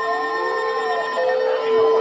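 Several weather alert radios sounding their alarms at once: a steady high alert tone and a lower steady tone, with another alarm tone sliding up and down in pitch. The alarms herald a severe thunderstorm warning.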